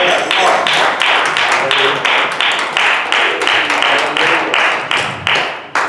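Rhythmic hand percussion keeping a steady beat, about three strikes a second.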